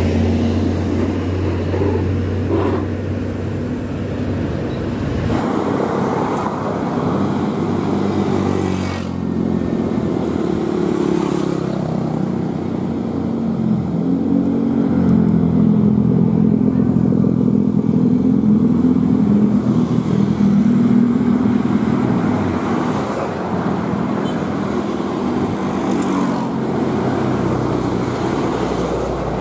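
Scania P380 truck's diesel engine running as it pulls a low-loader carrying a crawler crane, mixed with road traffic: motorcycles and cars passing by. The engine note rises and falls.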